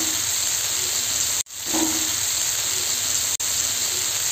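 Masala-coated fish pieces frying in oil in a flat pan, a steady sizzling hiss. The sound cuts out for a moment about a second and a half in and again briefly near three and a half seconds.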